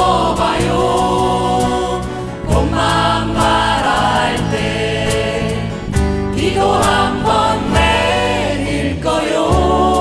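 Live folk-style song played on many strummed acoustic guitars with an electric bass, while a group of women sing the melody together.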